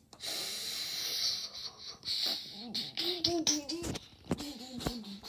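A hissing rush, then a child's voice making a string of short, wordless hummed notes that rise and fall.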